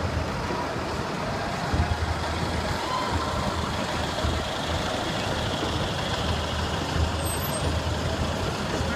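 Diesel engine of a coach bus running as the bus rolls slowly past, a low steady rumble over general street noise.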